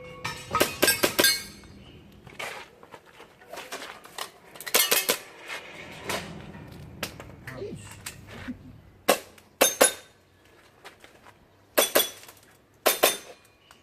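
Airsoft pistol shots fired in quick pairs and small groups during a timed shooting stage, each group followed by a short metallic ringing ping, typical of BBs hitting steel targets. There are about five groups, with pauses between them.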